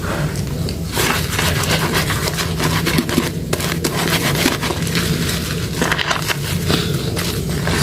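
Soaked, softened soap being worked by hand, with dense, rapid crackling and scraping.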